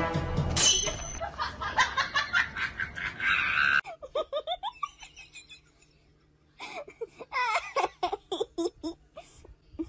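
A person laughing in short, high-pitched bursts of giggling from about four seconds in, with a brief lull in the middle. Before that there is a dense stretch of noise that starts with a sharp clatter and cuts off abruptly.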